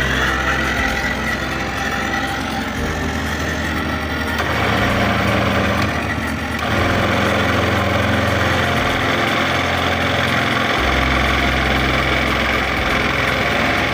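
An engine running steadily, its low hum shifting in pitch and load several times and growing louder about six and a half seconds in.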